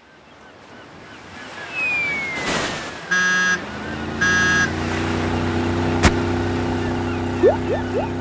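Cartoon sound effects: a rising rush ending in a splash, with a falling whistle, then a boat horn sounding twice and a boat engine running steadily. A single sharp knock comes about six seconds in, the boat striking the swimmer, followed by a run of quick rising blips.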